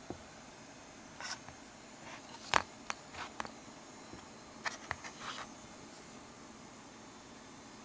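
A few sharp clicks and short scrapes as a small clock circuit board on its clear acrylic stand is handled and turned over on a table, the loudest click about two and a half seconds in, over a steady low hiss.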